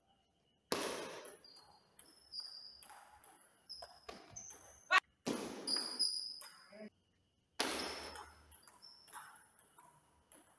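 Table tennis rally: the celluloid ball clicking off bats and the table in quick irregular knocks, with a sharp loud click about halfway through and short high squeaks between the strokes.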